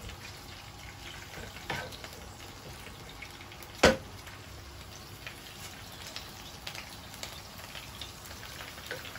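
Ginger-garlic paste sizzling gently in hot oil in a nonstick frying pan, stirred with a wooden spatula. It is at the stage of being lightly fried until it changes colour. The spatula knocks sharply against the pan about four seconds in, and more softly just before two seconds.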